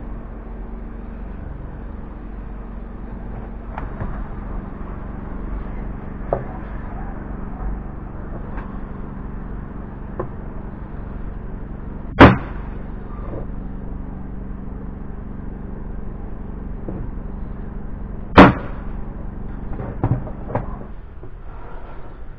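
Corded electric nail gun firing twice into MDF, each shot a single sharp snap, about six seconds apart. Two fainter clicks follow near the end, over a steady low hum.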